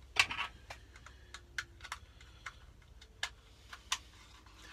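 Small sharp plastic clicks and taps, about ten at irregular spacing, the loudest near the start: a van's interior light fitting being handled as its wiring plug is unplugged.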